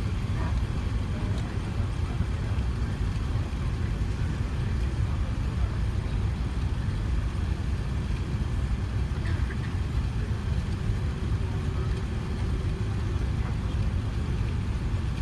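Steady low rumble inside the cabin of an Airbus A380 as it rolls out and taxis after landing.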